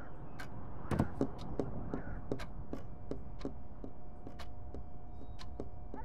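Wall pendulum clock ticking about once a second, with fainter clicks in between. A dull thump about a second in, over a faint steady hum.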